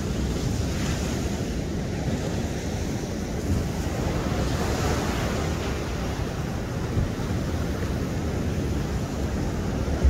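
Sea waves breaking and washing on a beach, a steady surf wash that swells about halfway through, with wind rumbling on the microphone.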